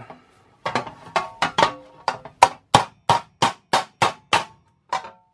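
Hammer tapping a tuck flat in the stretched edge lip of a curved sheet-metal panel, shrinking the edge. There are a few uneven taps at first, then a steady run of about three blows a second, each with a short metallic ring from the sheet.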